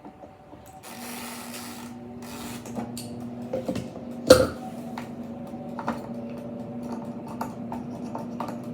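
Air fryer running: a steady motor hum that starts about a second in, with a brief rush of air at the start. Scattered clicks and knocks of handling, the sharpest about four seconds in.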